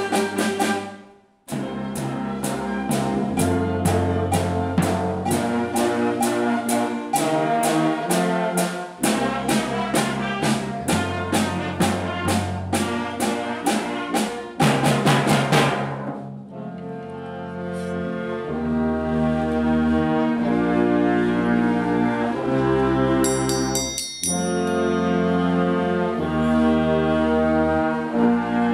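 Children's wind orchestra playing a rock-style piece: brass and percussion on a driving beat, with a brief break about a second in. From about halfway the brass moves to held chords, and a short high metallic shimmer sounds near the end.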